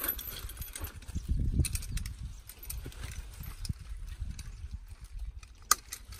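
Lever ratchet wire stretcher being worked by hand, its pawls clicking and the chain links clinking in irregular clacks as it draws a broken trellis wire tight, with one sharper click near the end.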